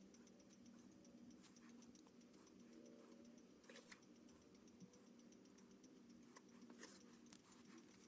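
Faint scratching of a pen on paper, light scattered strokes with two slightly louder ones about four and seven seconds in, over a low steady hum.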